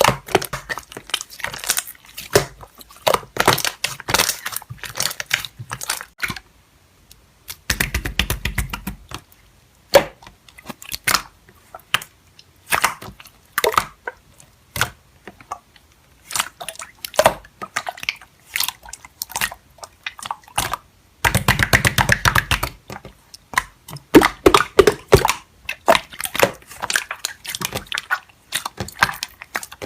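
Slime being squeezed and poked, with many small crackles and pops and two longer stretches of denser squishing about eight seconds in and again a little past twenty seconds.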